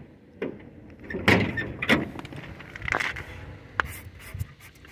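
The door of a rusted 1974 Oldsmobile Cutlass S being unlatched by its outside handle and pulled open: a string of clunks and rattles, the loudest about a second and a half in, with smaller clicks between them.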